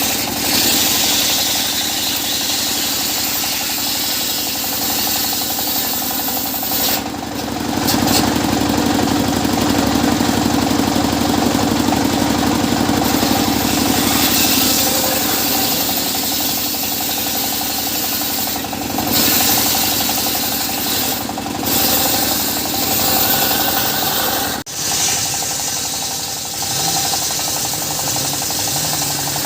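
Wood-cutting circular saw machine running continuously, its hum and blade noise rising and falling in level, with a brief sharp dip about 25 seconds in.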